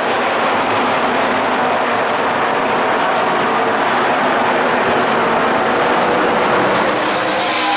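NASCAR Craftsman Truck Series race trucks running at racing speed around a short oval. Their V8 engines make a loud, steady blend of overlapping engine notes.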